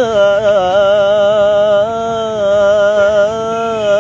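A man's unaccompanied voice singing salawat, a praise-and-blessing chant for the Prophet, on one long melismatic vowel. The pitch winds through quick ornaments, then holds steady about halfway through before turning again near the end.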